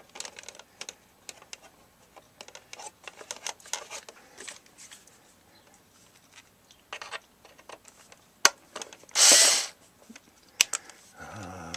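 Handling clicks, taps and scrapes of screws and a screwdriver working against the air conditioner's sheet-metal case, with a short, loud scraping burst about nine seconds in and a few sharp clicks around it.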